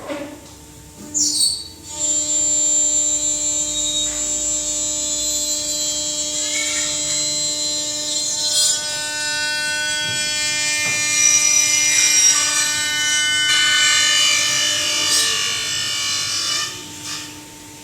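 CNC machine running: a high, steady motor whine made of many tones together, starting about two seconds in, changing pitch a few times as the machine works and stopping near the end.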